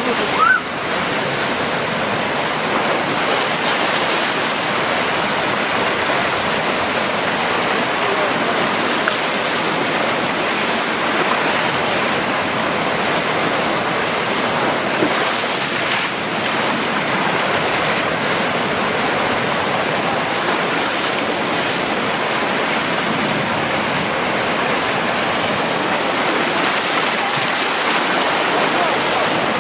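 Black Sea surf breaking and washing over a rocky shore: a steady rushing hiss that holds at an even level throughout.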